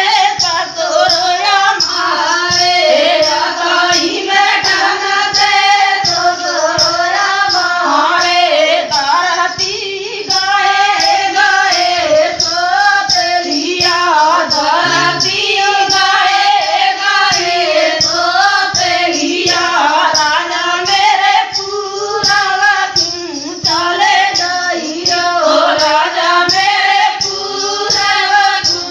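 Women singing a dehati folk dance song over a fast, steady percussion beat.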